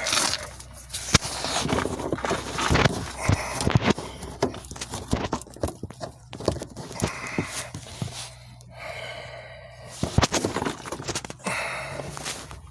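Handling noise from working blind behind the wheel-well liner: irregular plastic knocks, clicks and scrapes as the turn-signal bulb socket is fumbled back toward its hole in the lamp housing, with a couple of breaths.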